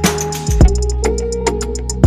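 Background music with an electronic drum beat.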